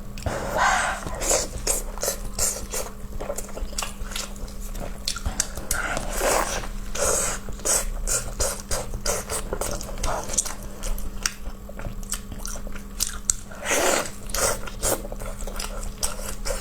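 A person eating close to the microphone: wet chewing with many small mouth clicks and smacks, and louder bursts of chewing three times, near the start, around the middle and near the end.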